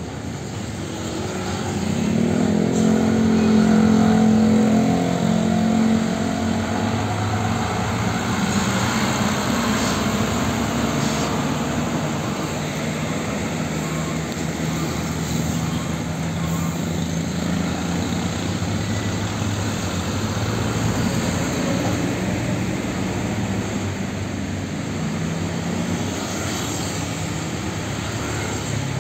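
Heavy diesel truck engines driving past close by. A truck's engine pulls hard and is loudest from about two to six seconds in, then settles into a steady diesel drone as more trucks follow.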